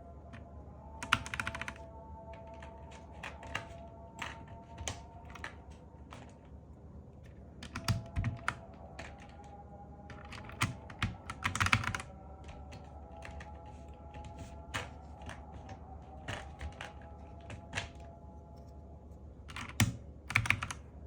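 Keys being typed on a Zifriend KA646 mechanical keyboard: irregular clacks and short flurries of keystrokes, with a few denser, louder clusters.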